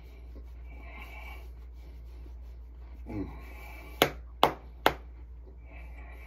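A hand slapping a large belly three times in quick succession: sharp smacks a little under half a second apart.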